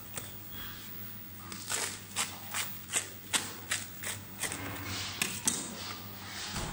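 A large kitchen knife cutting down through the crisp baked crust of a big semolina pan pizza, a run of short dry crunches about two to three a second from about a second and a half in.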